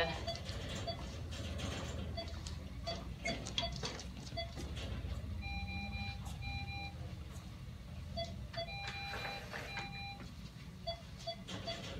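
Patient monitor beeping in a steady pulse-tone rhythm of about three short beeps a second, matching a dog's heart rate under anesthesia. Twice in the second half a longer alarm pattern of held tones at several pitches sounds over it, above a low steady hum and some light handling clicks.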